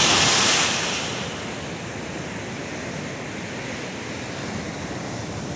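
Pacific surf washing up the beach: a wave surges in with a loud hiss over the first second, then a steady wash of surf continues.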